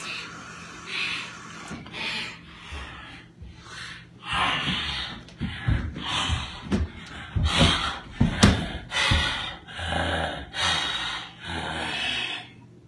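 A person breathing hard, panting and gasping in a quick run of heavy breaths, quieter at first and louder from about four seconds in.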